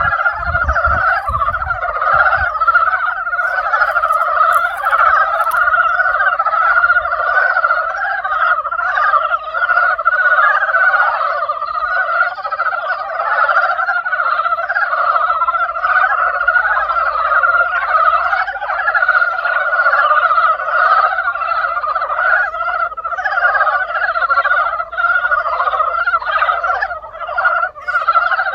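A dense spring chorus of many frogs calling at once, a continuous overlapping trilling croak with no breaks.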